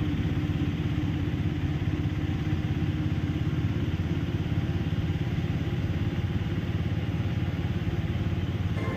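Engine of a three-wheeled tempo (auto-rickshaw) running steadily as it drives along the road, heard from inside the vehicle.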